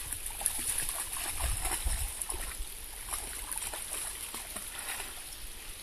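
Shallow river running over a stony bed, with scattered splashes as a dog wades through the water.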